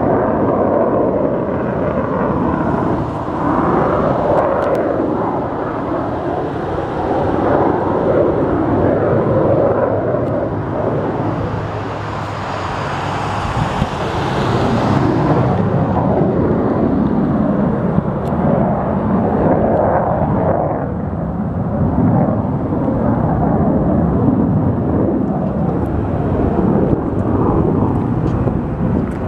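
Airplane flying overhead, its engine noise swelling and fading, with a brighter, hissier stretch about halfway through.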